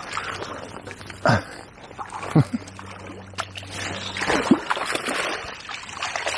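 Water splashing at the river's edge as a hooked chub is landed: two sharp splashes about a second and two and a half seconds in, over a rush of moving water.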